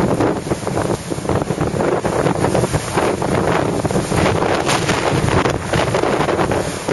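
Strong gale wind buffeting the microphone in irregular gusts, over rough, wind-driven sea waves.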